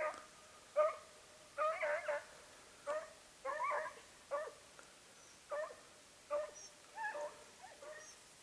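Basset Fauve de Bretagne hounds giving tongue on a rabbit's trail: a run of high, yelping barks, about one or two a second, some coming in quick clusters.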